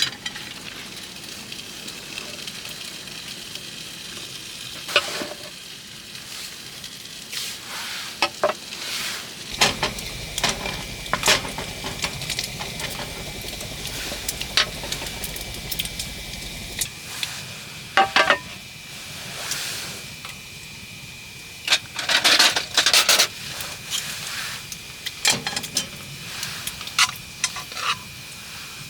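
Food sizzling in a pan while a utensil stirs and scrapes against it in irregular strokes, with sharp clinks and scrapes. A faint steady high tone comes in about ten seconds in.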